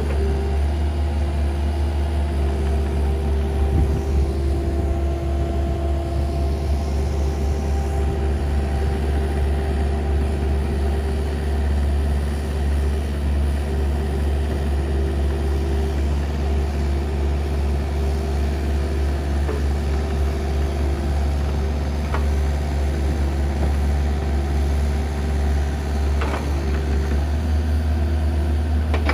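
Compact excavator's diesel engine running steadily under load, a constant low drone, as the machine works its way up a steep slope.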